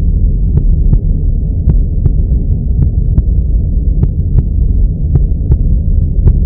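A steady, muffled low throbbing drone laid over the pictures as a backing track, with a pair of short clicks about once a second.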